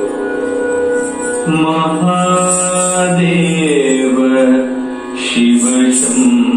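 Recorded Carnatic-style devotional song to Shiva: a voice singing long held notes that step and glide in pitch over instrumental accompaniment.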